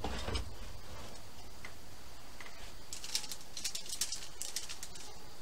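Light metal clicks and rattles from tongs and wire racks being handled at an open electric smoker: a few clicks at the start, then a quick run of sharp clicks from about three seconds in.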